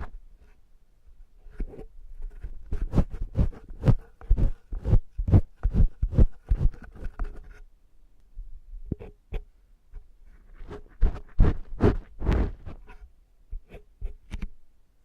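Close-miked scraping and tapping of an ear-cleaning tool inside a silicone ear model: irregular runs of sharp scratches and soft thumps, several a second, in two bouts with a brief sparser lull between them.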